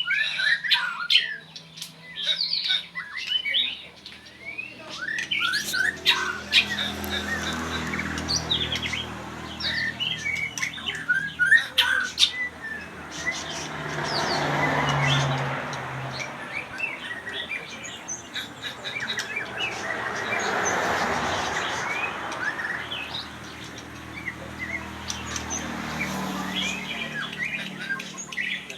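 Birds chirping and squawking in quick, overlapping short calls and trills. A rushing noise swells up and fades twice, around the middle and again a few seconds later, over a steady low hum.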